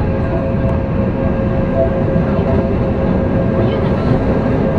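Running noise inside a Tokyo Metro 03 series chopper-control subway motor car under way: a steady rumble from the wheels and running gear with a steady whine held throughout.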